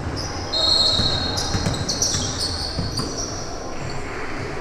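Basketball game sounds in a gym hall: sneakers squeak sharply on the court floor several times in the first half, over a ball bouncing and background voices.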